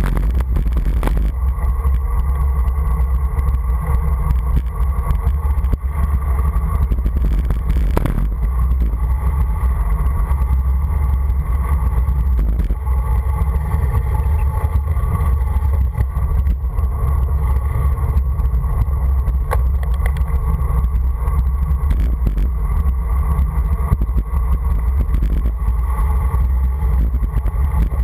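Steady, heavy low rumble of wind buffeting a moving camera's microphone, with road noise from a fast descent on asphalt.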